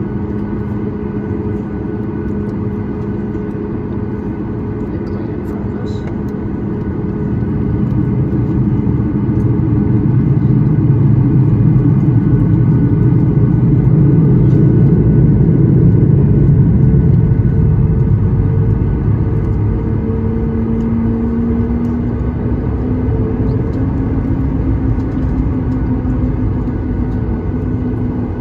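Cabin noise of a Boeing 737 MAX 9 taxiing, heard from a window seat over the wing: its CFM LEAP-1B engines running at taxi power over a low rumble. The noise swells louder for several seconds in the middle, then settles to a steady hum whose tone rises slightly near the end.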